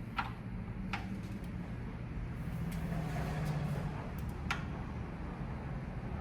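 Three sharp metallic clinks of a wrench against the engine's camshaft and bolts, over a steady low hum.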